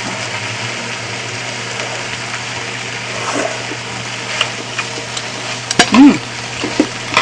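Squid and udon noodles sizzling in a hot frying pan as they are tossed with chopsticks and a metal spoon. In the second half come sharp clicks of the utensils against the pan, and about six seconds in a short pitched sound.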